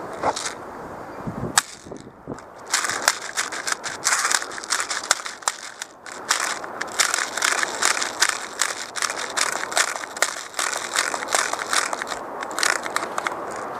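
Airsoft guns firing: rapid strings of sharp pops and clicks in irregular bursts, with a short pause about two seconds in and another about six seconds in.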